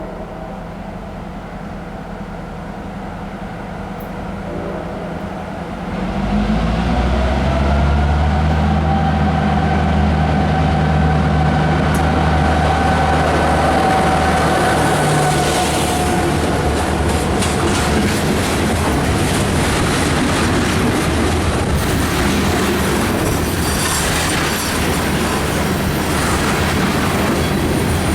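A New Jersey Transit commuter train comes into the station. The locomotive's low rumble grows much louder about six seconds in, with a steady high squeal for around ten seconds, then wheels clicking over the rail joints.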